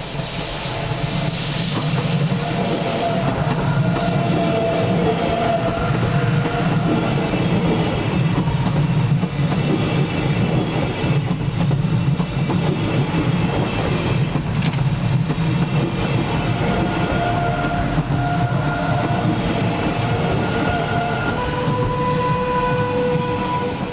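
Swiss electric passenger train running past along the platform: a steady loud rumble of wheels and running gear, with thin high tones coming and going over it, strongest near the end as the last car goes by.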